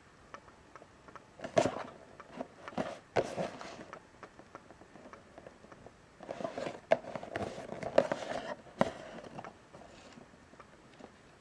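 Small cardboard box handled and turned in the hands, with scrapes, taps and crinkles of card in two short spells, one about a second and a half in and a longer one from about six to nine seconds.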